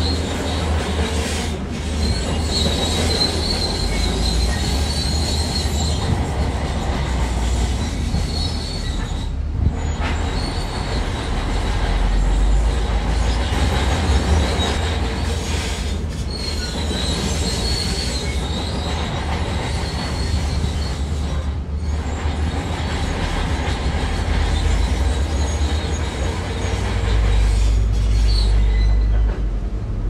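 Heavy earthmoving machinery running, with a deep engine rumble and an intermittent high-pitched metallic squeal.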